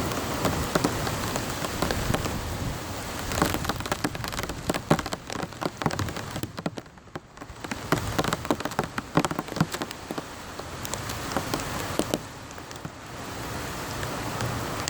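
Steady rain falling, with many sharp ticks of close drops landing, thickest through the middle and easing briefly about seven seconds in.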